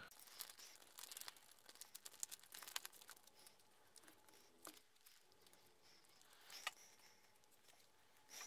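Faint crinkling of a foil-laminate MRE peanut butter pouch being squeezed and kneaded in the hands to work settled oil back into the peanut butter. The crackles come thickest in the first few seconds and then thin out to near silence.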